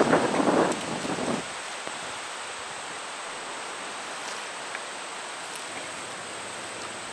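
Wind outdoors: a loud rushing gust dies away over the first second and a half, leaving a steady hiss of wind.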